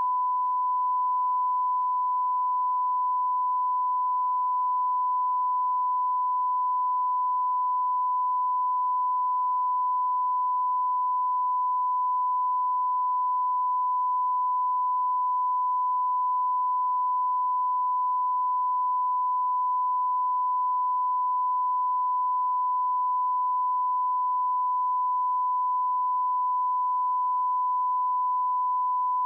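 A 1 kHz line-up test tone, one steady unbroken pure pitch. It goes with the colour bars at the head of a broadcast videotape and is used to set audio levels.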